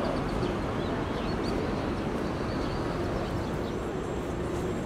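Open-air city ambience: steady traffic rumble with a few faint bird chirps in the first half, and a steady low engine hum in the second half.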